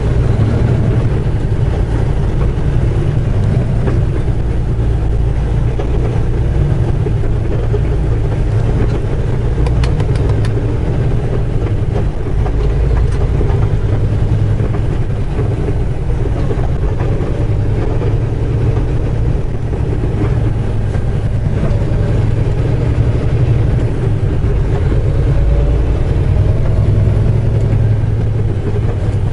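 Semi truck's diesel engine running steadily under way, with road noise, heard from inside the cab.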